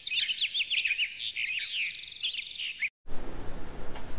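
Birds chirping and singing in quick sweeping notes with a brief trill, with almost no background beneath them; this cuts off suddenly about three seconds in and gives way to steady street noise.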